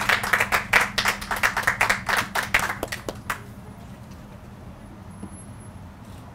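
A small group of people clapping, which dies away a little over three seconds in, leaving a faint low steady hum.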